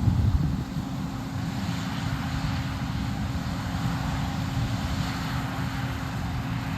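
Heavy diesel farm or truck engine running steadily at a constant speed, with an even low drone and a steady hum.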